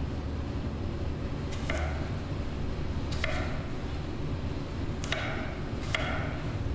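Chef's knife cutting through a green apple and knocking on a wooden cutting board: four sharp chops a second or two apart, over a steady low hum.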